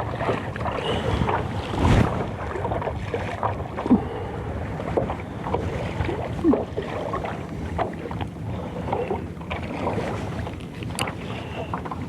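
Water lapping and slapping against a small boat's hull, with wind on the microphone and scattered small knocks and clicks.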